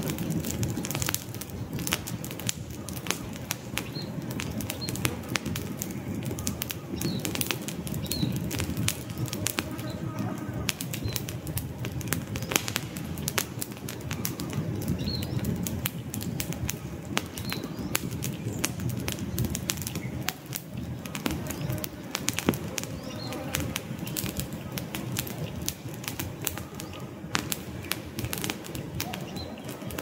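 Wood campfire crackling: dense, irregular pops and snaps over a low fluttering rush of flames. Faint short bird chirps come through now and then.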